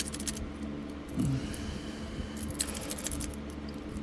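A dimple rake scraping and clicking in a lock's keyway as it is raked. Quick, irregular, light metallic clicks, thick at the start and end and thinner in the middle.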